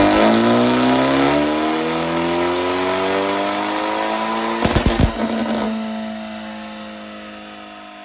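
Hyundai Elantra N's ECU-tuned engine and exhaust revving, with the pitch climbing slowly, then a rapid burst of pops and crackles about five seconds in from the pop-and-bang tune. After the crackles the engine holds a steady note that fades away near the end.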